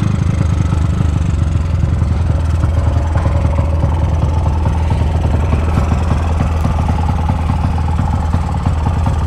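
Honda Titan 2000 motorcycle's built-up 240cc OHC single-cylinder engine idling steadily with an even low exhaust pulse, through an aftermarket GRS exhaust.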